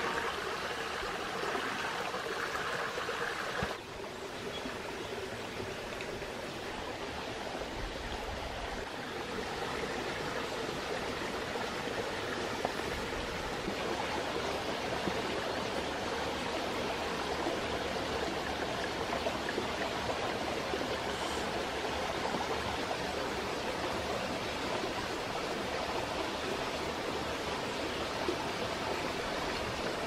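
A small stream running steadily, an even rushing hiss of water, briefly lower about four seconds in.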